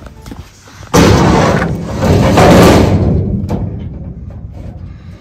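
Welded steel tube bracket banging onto the trailer's steel side wall about a second in, followed by a couple of seconds of metal scraping and rattling as it is worked into place, and a sharp click a little later.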